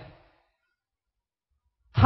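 Near silence: a pause between spoken phrases, with the end of a word fading out at the start and the voice resuming right at the end.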